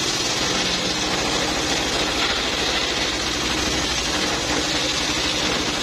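Diesel engine driving a homemade circular saw, running steadily with a fast, even low chugging, while the blade rips a teak log with a loud, hissing whine.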